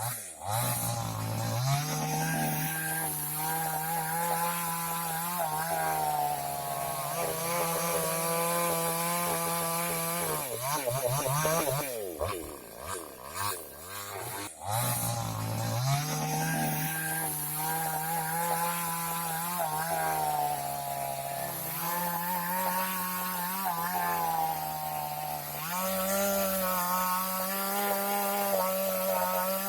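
Two-stroke chainsaw running at high revs while cutting wood. The engine note sags and wavers for a few seconds around the middle, then climbs back to full speed, and steps up a little higher near the end.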